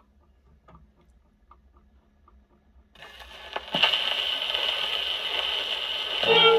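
Steel needle of a Columbia G-241 portable gramophone's soundbox set down on a spinning 78 rpm shellac record. After a few faint ticks, the needle meets the lead-in groove about three seconds in, and a loud steady surface hiss follows with a sharp click soon after. The record's music starts just before the end.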